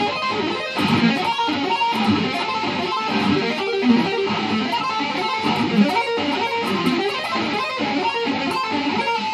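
Electric guitar playing a fast, continuous run of sweep-picked arpeggios, going down in a neoclassical style.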